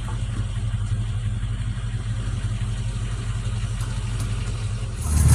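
2001 Bayliner Capri's engine idling steadily with an exhaust leak, then revving and getting louder near the end.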